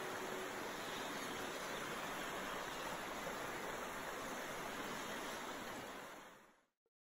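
A steady rushing noise, like running water or wind, that fades out to silence near the end.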